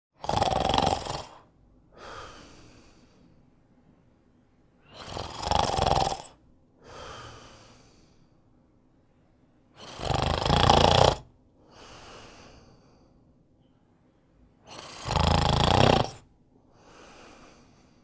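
Snoring: four loud snores about five seconds apart, each followed by a softer breath.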